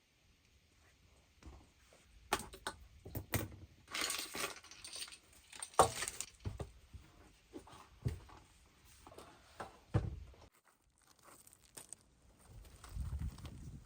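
Intermittent handling noises: light clinks, rustling and a few sharp knocks, the loudest about six seconds in, with a low rumble near the end.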